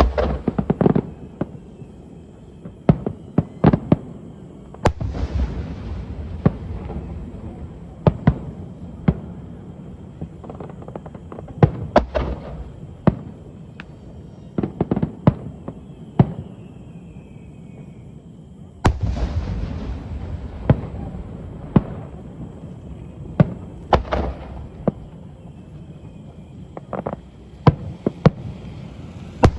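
Aerial fireworks shells bursting in an irregular series of sharp bangs, some coming in quick clusters, over a steady low rumble.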